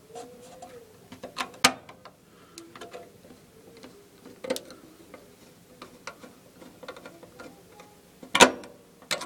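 Scattered metallic clicks and knocks of a screwdriver backing a screw out of a gas furnace's pressure switch mount, with the sharpest knock about eight seconds in.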